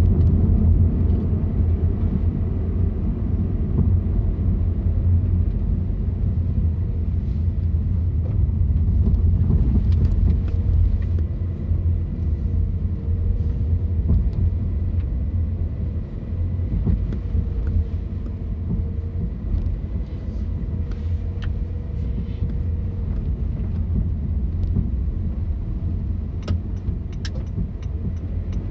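A car being driven along a road: a steady low rumble of engine and tyre noise, with a faint wavering hum through the middle and a few light clicks near the end.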